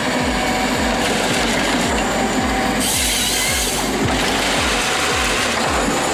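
Background music with a steady beat of about two low thumps a second, over the continuous noise of machinery working wood.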